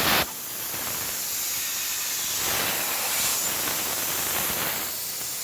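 Steady hiss of a Hypertherm Powermax105 air plasma torch cutting over a water bed; a louder hiss drops off sharply just after the start, and a lower hiss continues.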